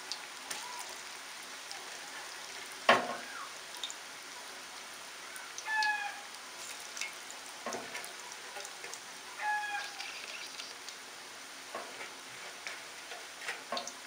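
Cabbage-onion bondas deep-frying in hot oil, a steady sizzle and bubbling. A sharp knock about three seconds in is the loudest sound, and a short animal call repeats in the background every few seconds.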